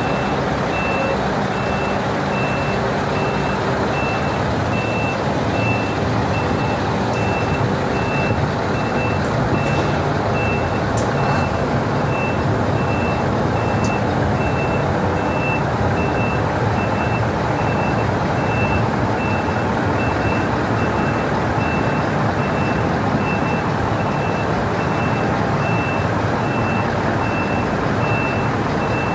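Truck reversing alarm beeping steadily, about two beeps a second, over the running of a Scania 164L 580's V8 diesel engine, heard from inside the cab while the truck backs up.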